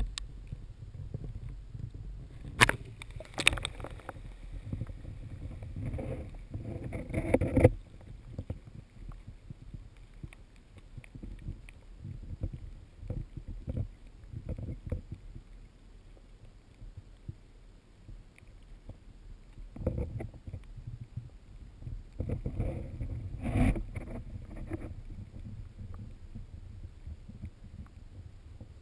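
Muffled water sound picked up by a GoPro HD Hero2 in its waterproof housing below the surface: a low rumble of water moving against the case, with scattered knocks. It has two louder stretches of sloshing and knocking, one a few seconds in and one after about twenty seconds.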